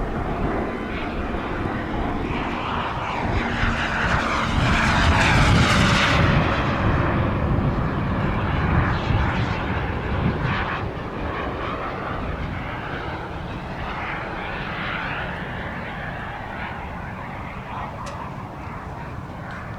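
Small turbine jet engine of an RC model jet whining in flight. It grows louder to a peak about five seconds in, then fades away. Wind rumbles on the microphone throughout.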